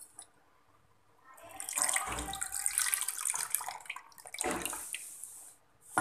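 Water poured from a cup into a large bowl of rice and dal, splashing for a couple of seconds, then a second, shorter pour.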